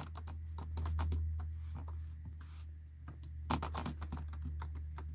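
Computer keyboard being typed on, a rapid run of key clicks that thins out partway through and then comes back in a dense flurry.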